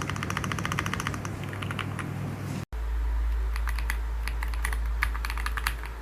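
Typing on a Royal Kludge RKR65 gasket-mount mechanical keyboard with GreenSand switches: rapid, irregular keystroke clacks, several per second. There is a brief break about two and a half seconds in, and after it the typing continues over a steady low hum.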